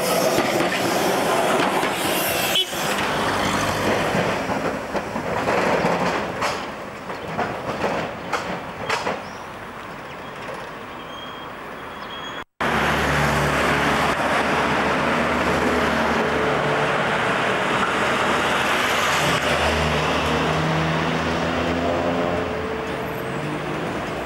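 W-class tram passing close by on street track: loud running noise of wheels on rails, with several sharp clicks a few seconds in. After a sudden brief dropout about halfway, steady road traffic and tram running noise with a low, even hum.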